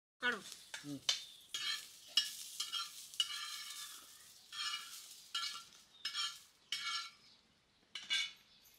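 A flat metal spatula scrapes and stirs green chillies on a hot iron tava in repeated short strokes, about one every half second to a second, as the chillies fry and roast for a masala paste. There is a longer stir a few seconds in and the strokes thin out near the end.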